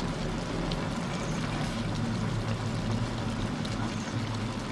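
Wok of stir-fried vegetables and beef cooking in its sauce over a burner: a steady sizzling, bubbling hiss with a low hum beneath it.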